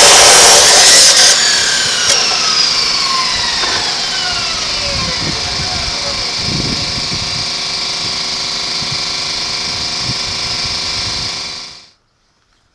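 Abrasive chop saw cutting through the steel shell of a scroll compressor, the cut ending about a second in; the saw's motor and wheel then wind down in a long, slowly falling whine, with a few low knocks of the compressor being handled. The sound cuts off abruptly near the end.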